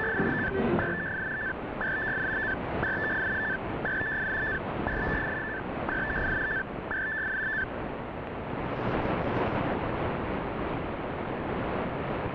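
Shortwave radio reception of Radio National of the Sahrawi Arab Democratic Republic: eight short beeps at one steady pitch, about one a second, over a constant hiss of static. The beeps stop after about seven seconds, leaving static alone.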